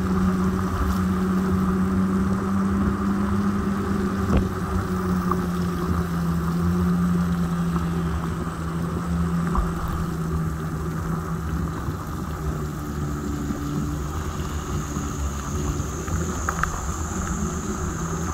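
Electric scooter ridden on wet asphalt: the motor's steady whine, dropping slightly in pitch about a third of the way in as it slows, over tyre rumble and wind on the microphone.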